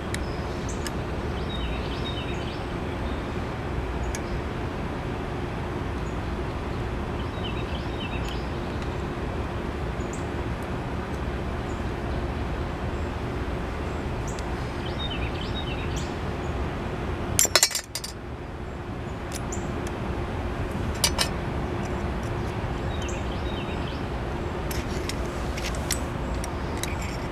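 Thin 20-gauge mild steel pieces being handled and straightened, giving scattered metallic clinks over a steady hiss, with a loud clatter of metal about 17 seconds in and another sharp clink about 21 seconds in.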